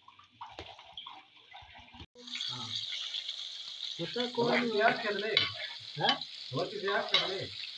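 Rohu fish pieces deep-frying in hot oil in an iron pan: a steady sizzle that starts suddenly about two seconds in. A voice talks over it from about four seconds.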